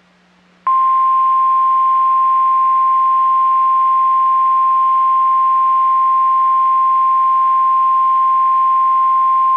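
NOAA Weather Radio 1050 Hz warning alarm tone: one steady, unbroken high beep starting under a second in and held for about nine seconds, over a faint hum. It signals that a warning broadcast follows.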